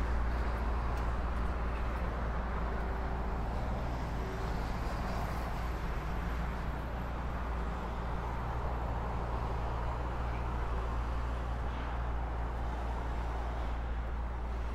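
Road traffic: a continuous low rumble, with the tyre noise of cars swelling and fading as they pass.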